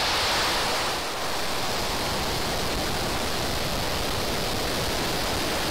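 SpaceX Falcon 9 rocket's nine Merlin 1D first-stage engines firing just after liftoff: a loud, steady rushing noise spread across all pitches, slightly louder in the first second.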